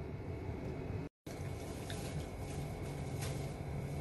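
Low steady room noise with a few faint small ticks, cut by a brief moment of dead silence about a second in.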